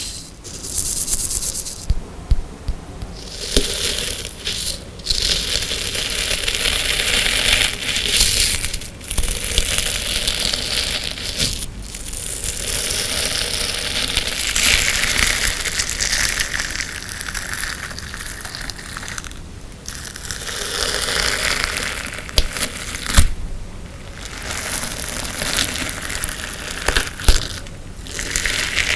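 Hands squeezing, crushing and stretching a crunchy coloured-sand slime, giving a crackly crunching in stretches of a few seconds with short pauses between them and a few sharp pops.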